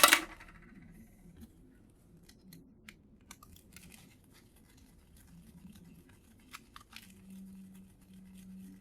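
Small hand tools working on plastic boombox parts: one sharp snap at the very start, then faint scattered clicks and scrapes as plastic is cleared from around a small motor's screws.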